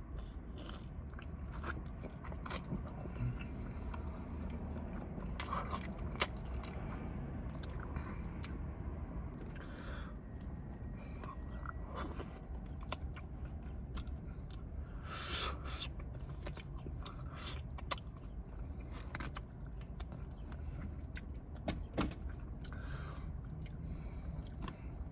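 A person chewing and biting fried food close to the microphone, with many short clicks and occasional louder crunches over a steady low hum.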